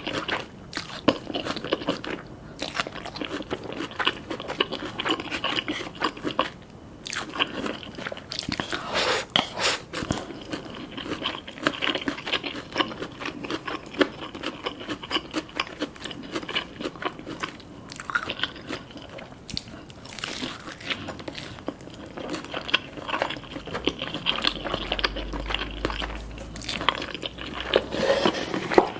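Close-up crunching bites and chewing of crispy Korean fried chicken: a dense, continuous run of crackly crunches and mouth sounds.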